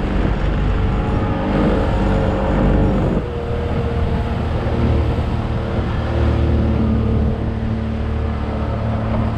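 Small motorboat's engine running under way, with water rushing along the hull. About three seconds in the engine note drops and settles at a lower pitch.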